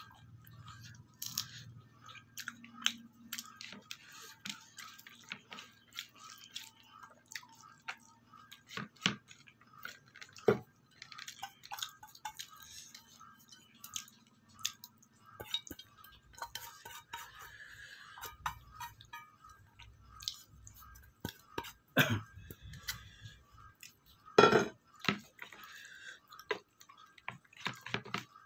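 Eating by hand from a plate: fingers mixing and scooping food against the plate, with a steel bowl clinking on it and some chewing. Many scattered small clicks, and two sharper knocks about two-thirds of the way through.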